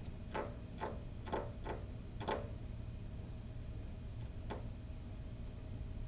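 Finch pecking at window glass, heard from inside as sharp taps. A quick, uneven run of five or six taps comes over the first two and a half seconds, then one more after a pause; the bird is attacking its own reflection.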